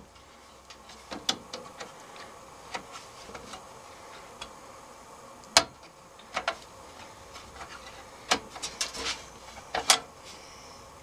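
Scattered sharp plastic clicks and taps of hands working on a desktop computer's motherboard, releasing the RAM slot latches and pulling out the memory modules. The loudest click comes a little past halfway, and several quicker ones follow near the end.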